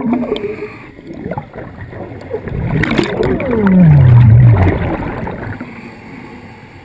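Underwater bubbling and gurgling of scuba exhaust bubbles, heard through a GoPro's waterproof housing. About three and a half seconds in comes a loud low rumble that falls in pitch, and then it fades.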